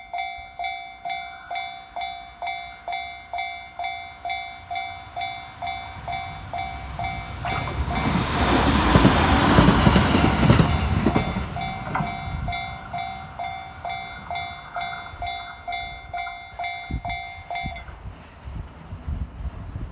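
Railway level-crossing warning bell ringing about twice a second while a local passenger train runs over the crossing. The train's wheels and running gear swell loud for about four seconds in the middle, and the bell stops shortly before the end.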